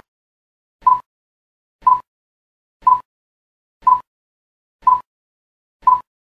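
Countdown-leader beeps: short, identical electronic tones at one steady pitch, one each second, about six of them.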